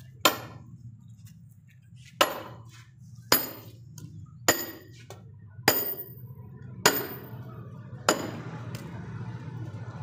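A hammer striking a metal wedge set in a log to split firewood: seven sharp metallic clinks, about one every second and a bit, each with a brief ring.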